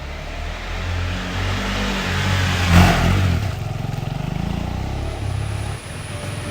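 KTM 390 Adventure's single-cylinder engine revving under way, loudest about three seconds in, then running more steadily.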